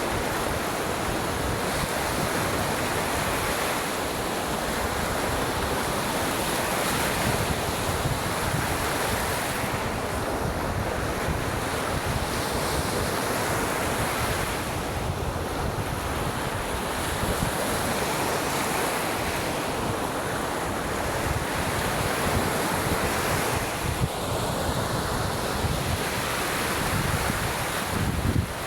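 Waves breaking and washing on a beach shore, a steady surf wash that swells and eases over several seconds, with wind buffeting the microphone.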